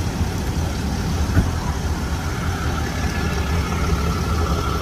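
Tow truck's engine idling: a steady low hum.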